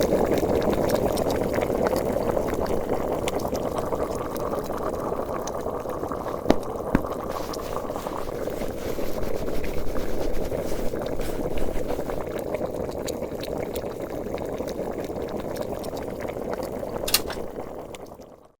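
A pot of water boiling: steady, dense bubbling, with a few sharp clicks, the last one near the end. It fades out quickly at the end.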